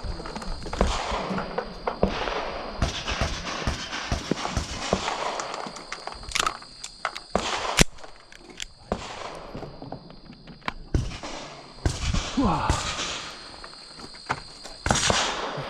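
Pistol handling and loading at the start position, with a few sharp metallic clicks, the sharpest about eight seconds in, among rustling and shuffling on gravel.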